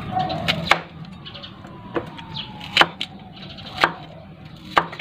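Kitchen knife chopping spring onions on a cutting board: single sharp chops, about one a second.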